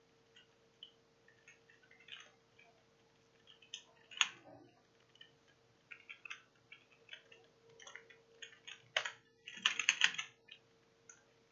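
Typing on a computer keyboard: irregular key clicks as an email address and a password are entered, with a denser, louder run of clicks near the end. A faint steady hum lies underneath.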